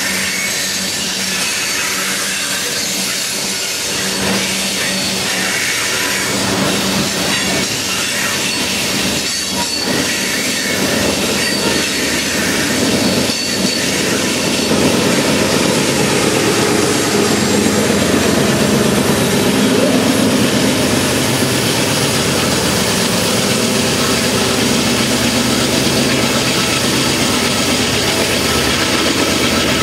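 Loaded coal train's hopper cars rolling past on steel wheels, then from about halfway through a Union Pacific diesel locomotive in the train passes and its engine, working hard up the grade, grows louder.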